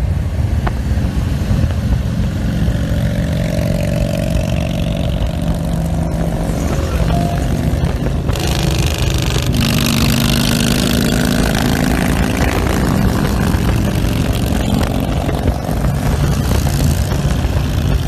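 Steady highway road and wind noise from a moving car. The wind rush gets louder about eight seconds in, and from about nine seconds the engine of a cruiser motorcycle riding right alongside runs steadily.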